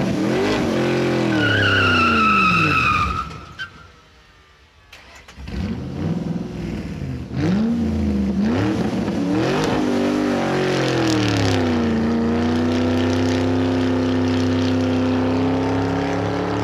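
Car engine revving up and down several times, with a high tyre-squeal tone about two seconds in. The sound drops out briefly around four seconds, then the engine revs again and settles into a steady run whose pitch slowly rises.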